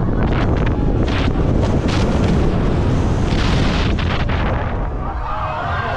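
Strong wind buffeting a camera microphone moving fast through the air, a loud, steady, rumbling rush that eases slightly near the end.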